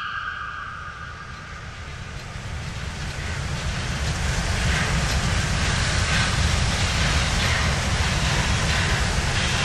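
Two SNCF 241 Mountain-type steam locomotives double-heading a passenger train, working steam as they approach. A rumble of wheels and exhaust grows steadily louder, with beats from the exhaust coming through in the last few seconds.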